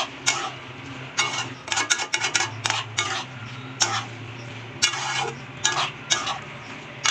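Metal spatula scraping and clinking against a metal kadai as prawns, mushrooms and chopped vegetables are stir-fried, a dozen or so irregular strokes over a steady low hum.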